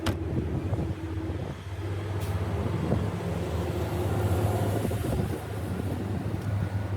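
A motor running steadily with a low hum, with a sharp click right at the start and a fainter one about two seconds in.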